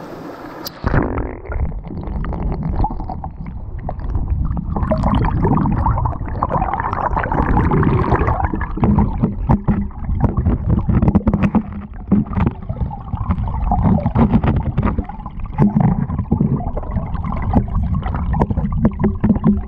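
Fast mountain stream heard from underwater: a muffled, churning rush and gurgle of water tumbling over rocks, full of small clicks and crackles. The bright upper sound cuts off suddenly about a second in, as the recording goes below the surface.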